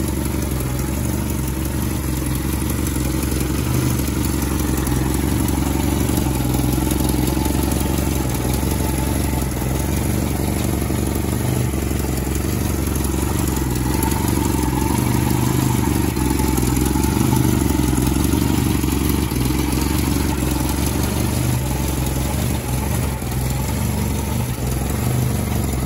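1967 Morris Mini 850's 848 cc A-series four-cylinder engine idling steadily while warm, heard close up in the open engine bay. A very slight exhaust leak may be present, which the owner thinks minor if it is.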